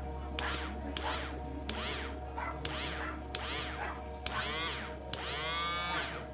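GY6 scooter electric starter motor, bench-tested off the engine, whirring in about seven short bursts as the start button is pressed, each a whine that rises and falls away, the last one held for about a second. It spins strongly after being cleaned and fitted with new carbon brushes.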